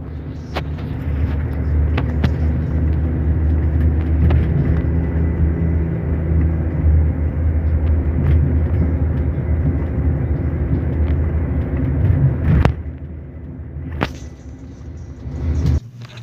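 Steady low engine and road rumble from inside a moving vehicle, with a few sharp knocks over it; it drops in level near the end and then cuts off suddenly.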